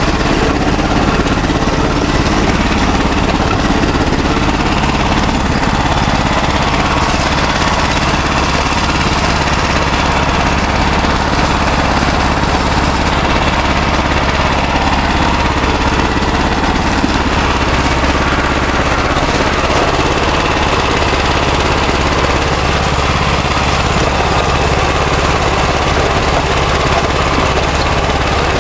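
Wheel Horse garden tractor engine running steadily, heard close up from on board as the tractor crawls over rough ground.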